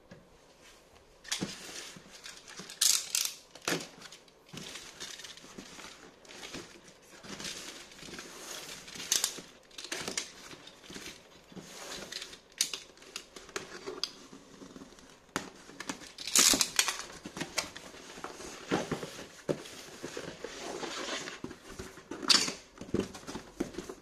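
Cardboard shipping box being opened: packing tape cut and torn off, cardboard flaps scraping and rustling, in irregular scratchy bursts that start about a second in.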